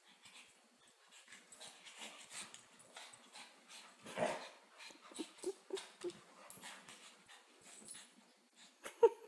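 A pug, a vizsla and a Labrador wrestling in play on a couch: scuffling and rustling against the cushions, broken by short dog vocal sounds, a louder one about four seconds in, a quick string of short ones just after five seconds, and a sharp, loudest one near the end.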